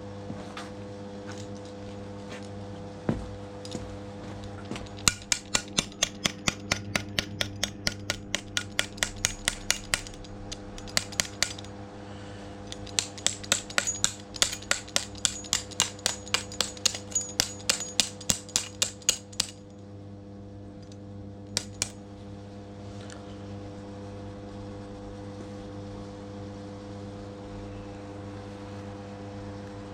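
Runs of quick, sharp metallic taps, about four or five a second, over a steady hum. The taps stop and start several times and fall silent after about 22 seconds.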